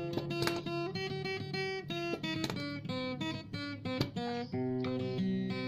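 Background music: acoustic guitar playing a run of plucked notes and strummed chords.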